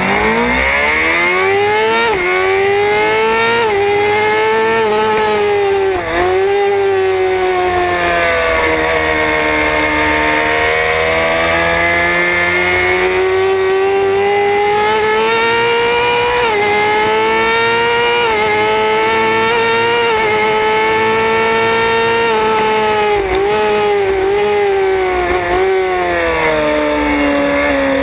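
Suzuki GSX-R600 inline-four engine heard from on board, launching off the start line and pulling hard up through the gears. The revs climb and drop back with an upshift about every two seconds at first, then sweep up and down more slowly. Near the end they fall in quick stepped blips on downshifts.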